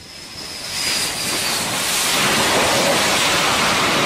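Fighter jet coming in low over an aircraft carrier's flight deck. Its engines build over the first second to a loud, steady rushing noise, while a high, slightly falling whine fades out.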